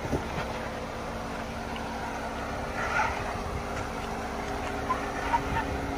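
Jeep Wrangler Rubicon engine running steadily at low revs as the Jeep crawls down a rocky trail, with scattered short knocks and crunches of tyres over rock.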